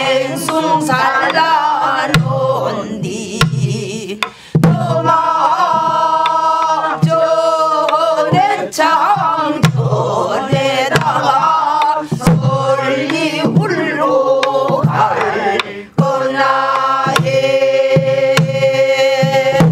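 A class singing a southern Korean (Namdo) folk song together in long wavering held notes, with steady strokes on buk barrel drums keeping the beat; the singing breaks off at the end.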